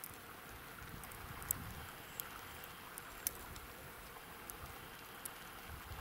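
Quiet open-air ambience by cold open water: a faint steady hiss with a low wind rumble on the microphone and scattered sharp, light ticks.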